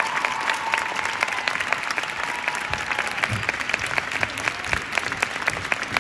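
Audience applauding with fast, dense clapping, while a held note of the routine's music fades out about a second in.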